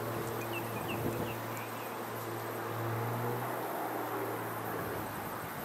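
Distant single-engine aerobatic plane droning steadily overhead, its engine and propeller note swelling a little about halfway. A few short high chirps sound in the first two seconds.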